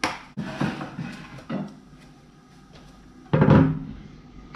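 Knocks and clunks of kitchen items being set down and picked up: sharp knocks at the start and about a second and a half in, and a louder, heavier clunk about three seconds in.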